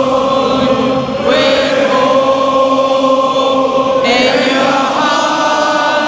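A stadium crowd of football fans singing together in long held notes.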